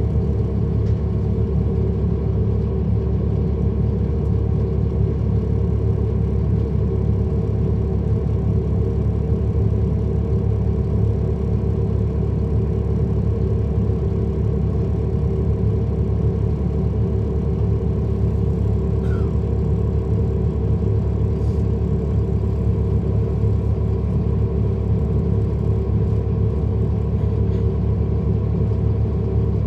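Cummins ISL9 inline-six diesel of a 2010 NABI 40-SFW transit bus running at a constant engine speed: a low, even drone with no revving up or down.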